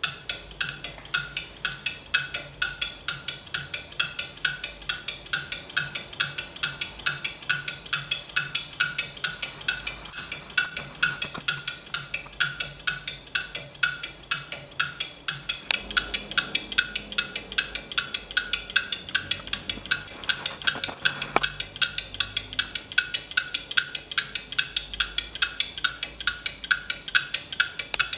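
Homemade hard-drive solenoid engine running on 9 volts: the read-head voice-coil lever is pulsed once per turn through a wire contact switch, giving a steady rhythm of sharp clicks, several a second.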